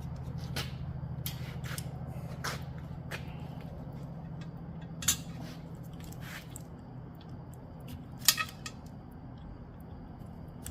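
Hands and tools working a soapy rubber tire and its bead: scattered sharp clicks and knocks, the loudest about five and about eight seconds in, over a steady low hum.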